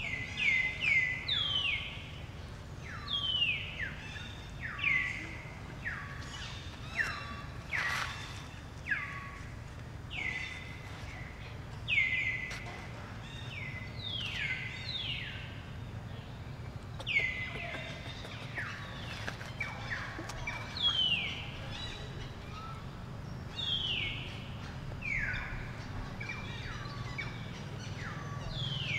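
Short, high chirping animal calls, each sliding down in pitch, repeated roughly once a second or two, some in quick pairs, over a steady low hum.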